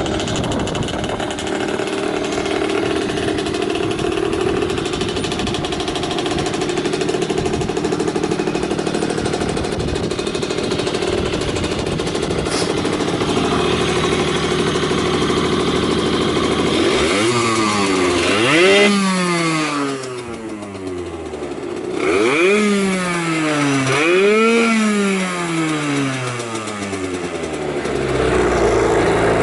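Yamaha TZR50's 50cc two-stroke single, fitted with an SP Tadao Jackal expansion chamber, idling steadily, then revved in three quick throttle blips from about 17 seconds in. It runs with no abnormal noises.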